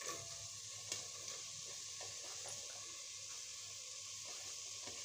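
Faint, steady sizzling of masala and onion cubes in hot oil in a pressure cooker, with a light tap about a second in.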